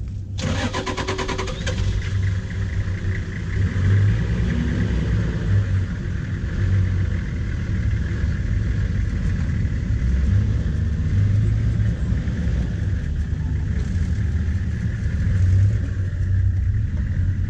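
A safari vehicle's engine running as it moves off slowly: a loud, uneven low rumble. In the first two seconds there is a quick burst of rapid clicks.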